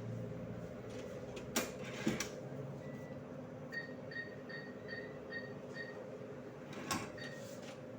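Bank ATM beeping: a run of short high beeps, about two or three a second, over the machine's steady hum, with a few sharp clicks.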